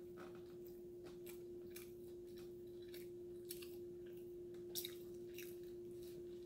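A person chewing a mouthful of hamburger: faint wet mouth clicks and smacks, every third to half second, the loudest a little before five seconds in. A steady low hum runs underneath.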